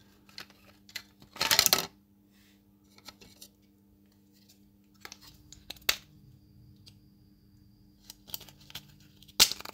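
Small parts of a rusty toy model car being worked apart with a screwdriver and by hand: scattered clicks and scrapes of metal and plastic, with a loud scraping burst about one and a half seconds in and a sharp snap near the end.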